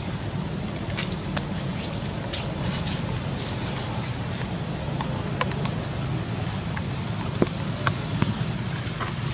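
Steady, high-pitched drone of insects over a low rumble, with scattered small clicks.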